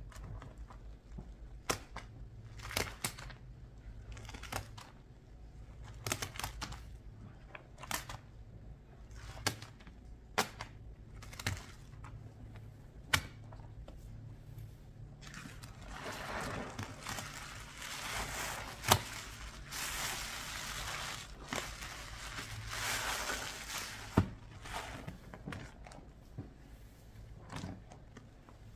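Scattered sharp taps and clicks about once a second, then about eight seconds of continuous crinkly scraping noise broken by two sharp knocks, from cleaning-product containers and paste being handled.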